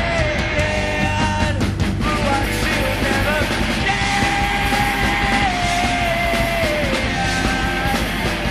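Live punk rock band: a male singer holding long sung notes that slide down in pitch, over distorted electric guitar, bass and drums.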